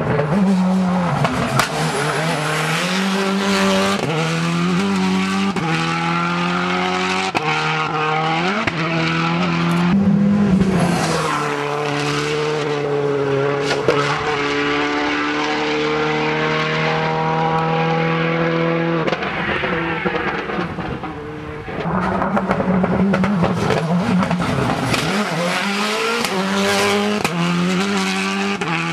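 Rally cars driven flat out on a tarmac stage: engines revving hard and climbing in pitch through the gears, dropping at each shift, with frequent sharp cracks and some tire squeal.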